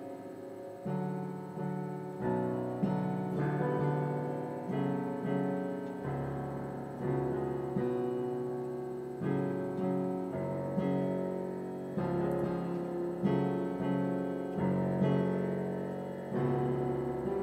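Solo piano being sight-read: chords and single notes struck about once or twice a second, each ringing and dying away before the next.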